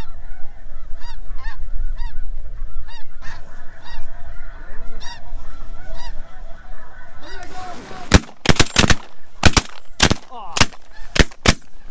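A flock of snow geese calling overhead, a chorus of repeated high honks. About eight seconds in, a volley of about ten shotgun blasts from several hunters follows in quick succession over three or four seconds.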